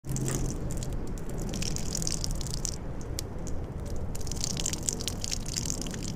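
A person urinating: a steady stream of urine splashing, with crackling spatter, that starts abruptly and keeps going.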